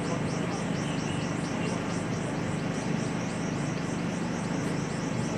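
Steady background noise of a large seated crowd at an outdoor wrestling ground, with a low hum and a fast, even high-pitched chirping repeating several times a second.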